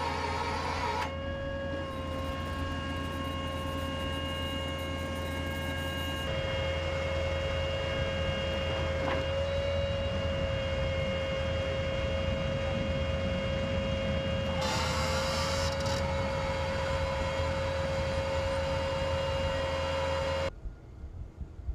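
Heavy machinery running with a steady high whine over a constant low hum, in several segments that change abruptly, then cutting off sharply near the end.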